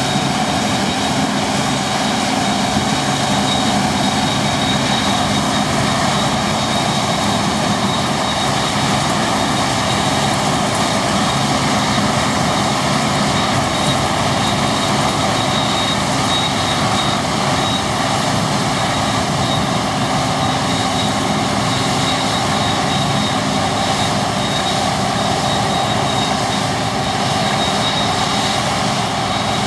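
Deutz-Fahr 6095 HTS combine harvester running steadily under load, engine and threshing machinery together, with a thin steady high whine over the noise.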